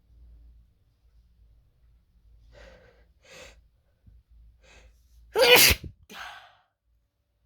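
A person's wet sneeze: a few short catching breaths build up, then one loud sneeze about five and a half seconds in, followed by a breath out.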